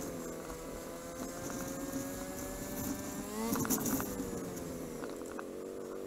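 Motorcycle engine running under way, heard from on the bike, its pitch climbing slowly for about three seconds. About halfway through the pitch jumps and drops with a brief burst of clatter, then settles lower and steady.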